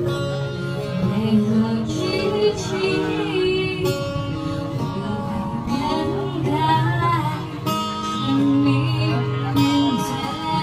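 Music: a song with a sung melody over plucked guitar.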